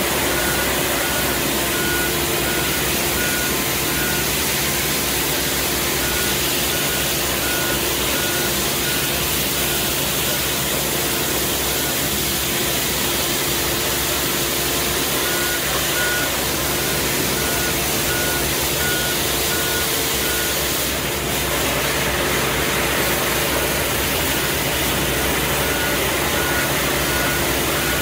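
Compact street sweeper running, its engine and hydraulics humming steadily while the rotating side brush scrubs the paving stones. A machine warning beeper sounds as a quick series of high pips that stops and starts several times.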